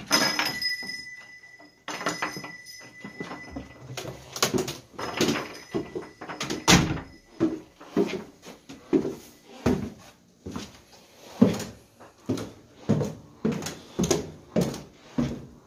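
A door opening with a steady high squeak at the start, then footsteps going down wooden basement stairs, about one step every second or less.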